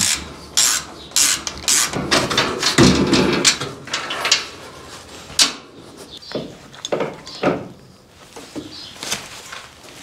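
A run of sharp, irregular clicks and knocks, close together in the first four seconds and fewer after that.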